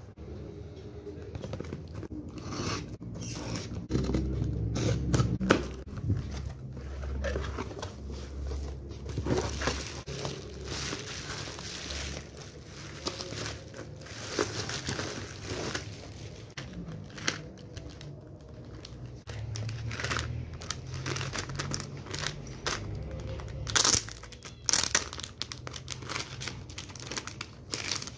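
Packaging being handled by hand: a cardboard shipping box is opened, then bubble wrap crinkles and rustles as it is pulled away and plastic packaging is handled. Many short crackles run through it, with a couple of louder ones near the end.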